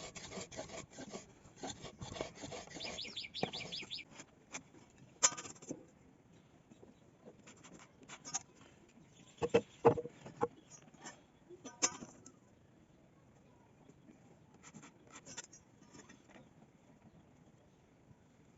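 Hand tools working wood: a run of quick, short strokes in the first few seconds, then scattered sharp knocks and taps with quieter stretches between.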